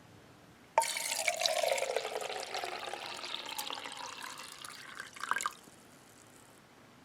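Water pouring, starting suddenly about a second in and stopping after about five seconds, with a tone that slides down in pitch as it goes and a few splashy clicks at the end.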